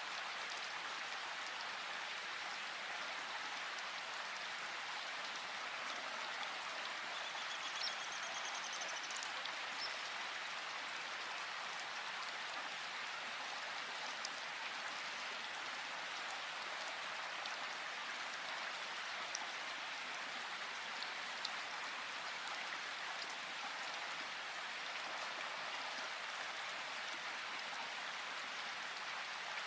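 Rushing river water, a steady even hiss. About seven seconds in, a bird calls briefly, high and faint.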